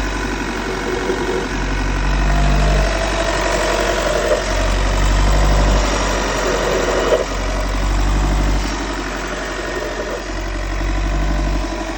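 2016 Volkswagen T6 van running, with a low drone that swells and fades about every three seconds: the unexplained noise the owner is asking about. A higher hum joins near the middle for a few seconds.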